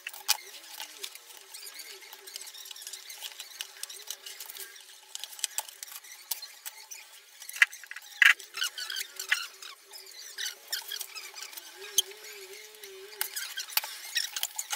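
Scattered light clicks and clatter of plastic and metal parts being handled as an LED TV is taken apart, with a few sharper knocks about eight seconds in. A brief wavering squeak comes about twelve seconds in.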